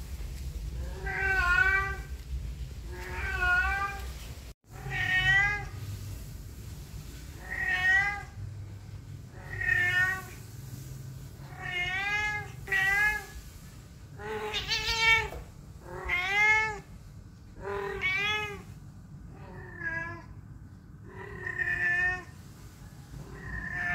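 Ginger Persian cat meowing over and over: about a dozen meows, one every second and a half to two seconds, each rising and then falling in pitch.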